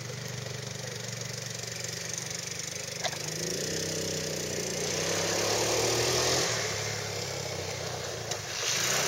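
ATV engine running steadily, revving up about three and a half seconds in and easing back down a few seconds later. A single sharp click sounds about three seconds in.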